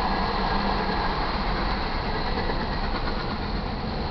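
Freight cars of a manifest train rolling past close by: a steady noise of steel wheels on the rails and the cars rattling.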